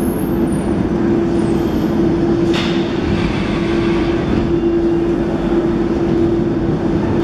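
Metro train standing at the platform with its doors open: a steady hum on one constant tone over a low rumble, with a short hiss about two and a half seconds in.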